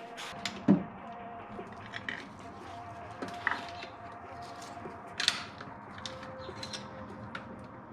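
Metal hand tools and small screws clinking and knocking against engine parts as the fuel rail's mounting screws are set in place: scattered sharp clicks, with the loudest knocks about a second in and past the five-second mark.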